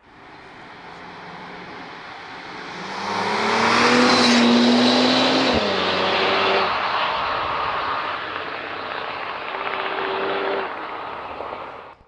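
Bentley Continental GT engine and exhaust revving under acceleration. The sound builds to its loudest about four seconds in, and the engine note drops suddenly about five and a half seconds in. The note climbs again briefly near ten seconds, then the sound cuts off abruptly.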